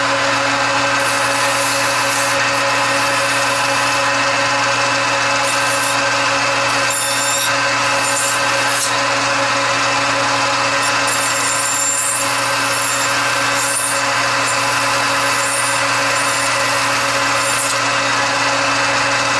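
Metal lathe running steadily at high spindle speed, its motor and gears giving a loud hum with several steady pitches, while worn emery cloth is held against the spinning knurled steel knob to polish it.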